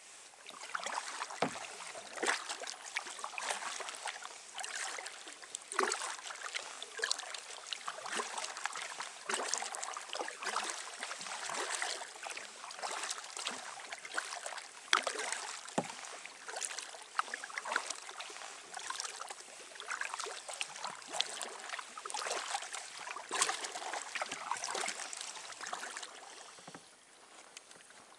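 Kayak paddling on calm water: continuous splashing and dripping as the paddle blades dip and lift, starting about a second in and easing off near the end.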